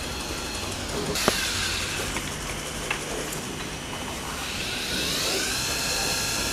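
Factory machinery with a steady high whine, a sharp click just after a second in and a few lighter clicks. About two-thirds through, a whine rises in pitch and then holds steady: the spindles of an automatic multi-spindle coil-winding machine spinning up as it winds fan-motor stator coils.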